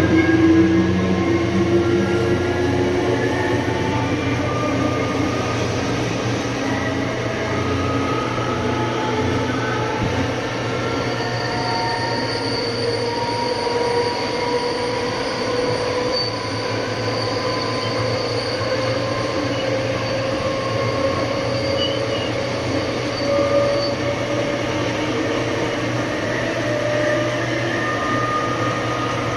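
Siemens Charger SC-44 diesel-electric locomotive accelerating: its Cummins QSK95 V16 diesel runs steadily under load beneath several whines from the traction motors that slowly rise in pitch as the train gathers speed.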